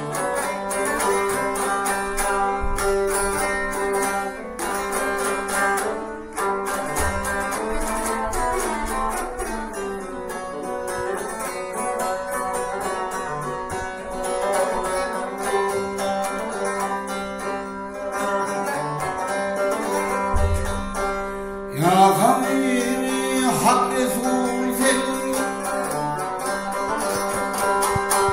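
Turkmen dutar, a two-stringed long-necked lute, strummed in a rapid, steady pattern over a ringing drone. A man's voice comes in singing over it about three-quarters of the way through.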